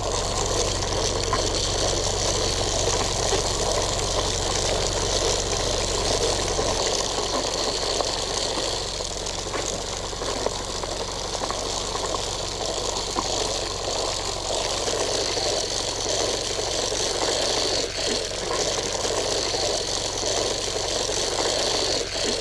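A small engine running steadily, with a constant hum and hiss that shift slightly in level now and then.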